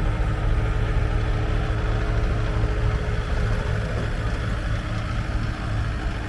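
Diesel engine of a 2006 Bobcat S250 skid steer loader running steadily with a low, even drone.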